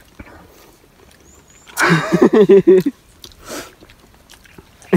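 A person's voice: a short burst of vocalizing lasting about a second, starting about two seconds in, followed by a brief breathy rush.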